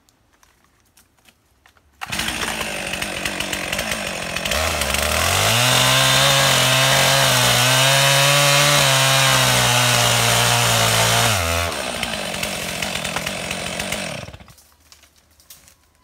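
Two-stroke chainsaw: it comes in suddenly about two seconds in, runs at a fast idle, then revs to full throttle and cuts into a thin tree trunk for about seven seconds. It then drops back to idle and cuts off near the end.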